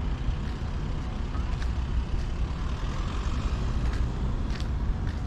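Outdoor city ambience: a steady low rumble with a few faint, short clicks.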